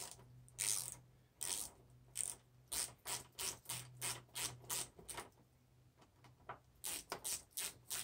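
Hand ratchet with a T40 Torx bit clicking as it backs out the windshield mount bolts: a run of sharp clicks about two or three a second, a pause of about a second and a half, then a quicker run near the end.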